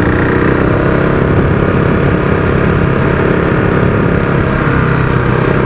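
KTM single-cylinder motorcycle engine running at steady revs, with no change in pitch.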